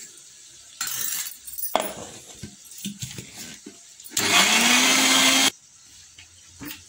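Electric mixer grinder running in one short burst of just over a second, its motor pitch rising as it spins up and then cutting off, grinding tomato, garlic and ginger into a peanut and spice masala. A few knocks and clinks of the steel jar being handled come before it.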